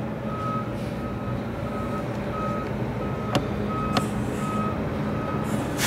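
A vehicle's reversing alarm beeping evenly, about three beeps every two seconds, over a steady low hum. Two sharp clicks come a little past the middle.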